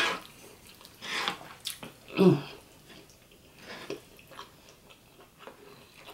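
A wooden spoon scooping and scraping through saucy curry turkey, rice and cabbage on a griddle tray, with small clicks. About two seconds in there is a short hum from the eater.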